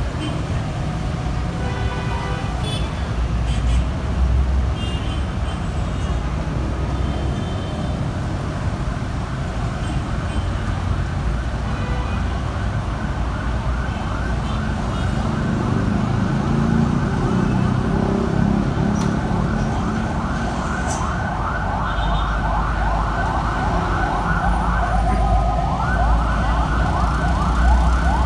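Street traffic with motorcycles and engines running, then, about eight seconds in, an electronic vehicle siren starts yelping in fast, repeated rising sweeps. It grows louder and cuts out for a moment near the end before resuming. A deeper engine rumble swells midway.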